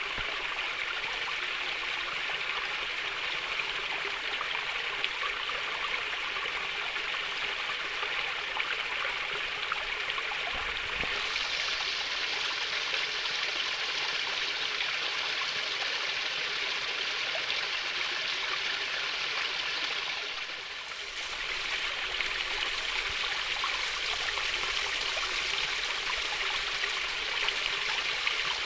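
Water flowing in a small stream: a steady, gentle trickling and babbling. About a third of the way in it turns brighter and hissier, and it dips briefly about two-thirds through.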